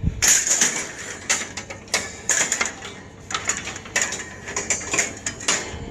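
Metal clattering and rattling as scrap items are pulled and shifted, with a string of irregular sharp clanks and scrapes where something is caught and being worked free.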